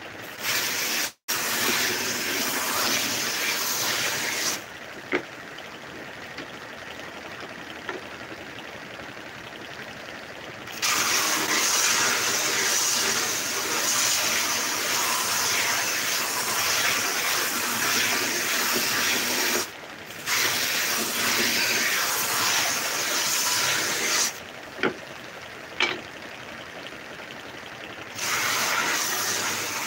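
Homemade belt sander abrading thin wooden strips pressed against the moving belt: a loud, even sanding hiss in long spells, with quieter stretches between. A few sharp knocks, one about five seconds in and two close together near the end.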